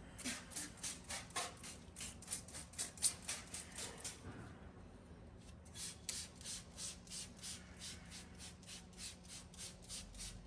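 Hand trigger spray bottle being squeezed over and over, about three short hissing sprays a second, misting bleach onto the car's interior, with a pause of about a second halfway through.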